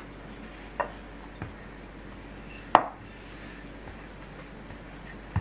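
Bread dough being shaped by hand and with a wooden rolling pin on a wooden board: four sharp knocks against the board, the loudest a little under three seconds in.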